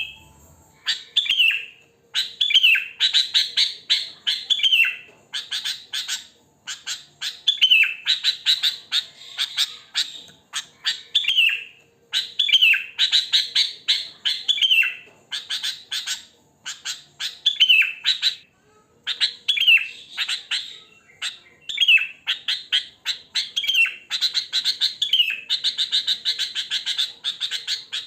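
Sooty-headed bulbul (kutilang) calling in repeated bursts of quick chattering notes, many ending in a downward-sliding note, with short pauses between bursts. The bursts run almost together near the end.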